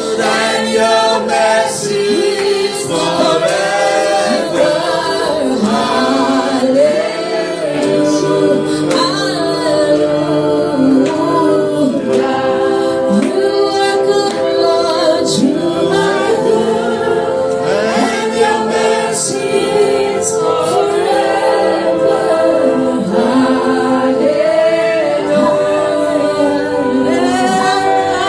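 A group of voices singing together in gospel-style worship, many pitches overlapping and sliding.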